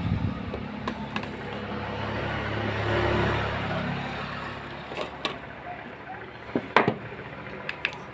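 Handling of a smartphone's cardboard retail box and its inner packaging: a scatter of sharp taps and clicks, the loudest about seven seconds in. Under them runs steady street traffic noise that swells around three seconds in.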